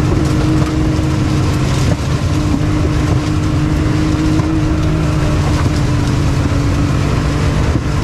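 Can-Am Maverick X3 Turbo side-by-side with snow tracks, its turbocharged three-cylinder engine running steadily under load with a constant low drone, heard from inside the cab while it pushes through snow-covered stalks.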